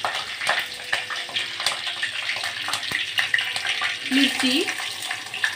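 Tempering of cumin, mustard seeds and curry leaves sizzling and crackling in hot oil in a small steel pot: the phodni (tadka) frying.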